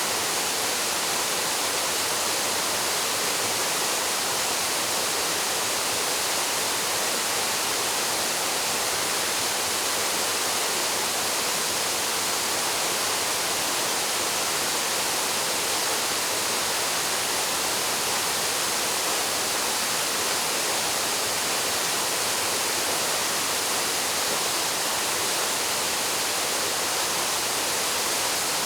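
Waterfall plunging into a pool, a steady, even hiss of falling water with no change in strength.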